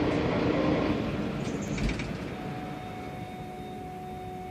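Mercedes-Benz Citaro C2 city bus running, its engine hum loud for about the first second and then falling away. There are a few clicks about two seconds in, followed by a steady high whine.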